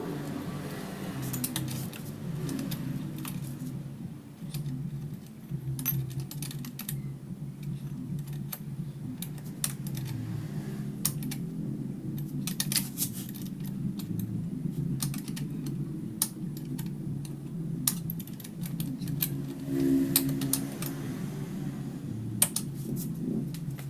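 Irregular light clicks and clinks of hand tools and small metal parts being handled while a Honda Grand motorcycle cylinder head is taken apart, over a steady low hum.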